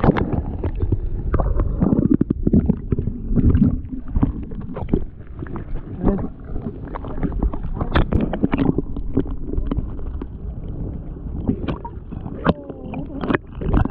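Sea water sloshing and gurgling around a camera dipped in and out of the sea beside a boat's hull, with irregular knocks and splashes.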